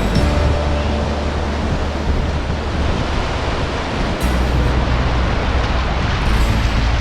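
Surf washing on the beach, with wind buffeting the microphone: a heavy low rumble that eases for a few seconds and comes back suddenly about four seconds in.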